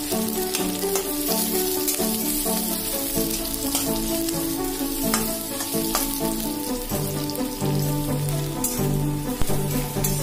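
Sliced onions and green chillies sizzling in hot oil in a metal kadai, being fried toward golden brown, with a spatula stirring and knocking against the pan now and then. Background music of steady, stepping notes plays throughout.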